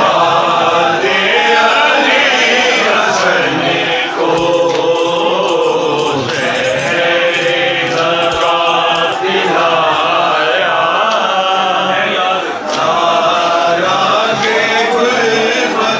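A large crowd of male mourners chanting together in long phrases, a Shia mourning chant for Imam Hassan.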